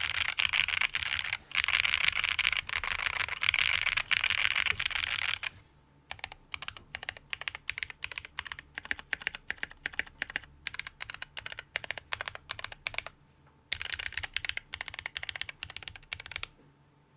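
Tofu68 mechanical keyboard with TTC Speed Silver linear switches on a polycarbonate plate being typed on: fast continuous typing for the first five seconds or so, then slower, separate keystrokes, then another fast burst that stops shortly before the end.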